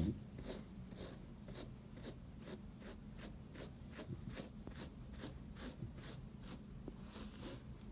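Slicker brush drawn through a Chow Chow's thick double coat in quick repeated strokes, about three a second. A brief thump comes right at the start.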